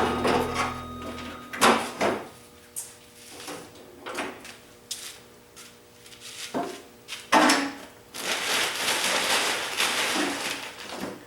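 Scattered knocks and clunks, as of parts and tools being handled, then a steady hiss lasting about three seconds near the end. Background music fades out in the first second and a half.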